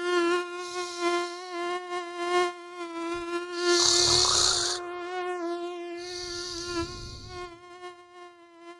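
Mosquito whine, a steady buzzing tone with a slightly wavering pitch, over a person snoring: three breathy snores, the loudest about four seconds in. The sound fades toward the end.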